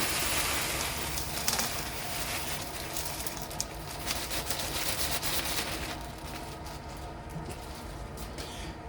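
Gravel and small stones rattling and crackling in a gem sieve as the sapphire wash is worked through it, with many small clicks that thin out after about six seconds.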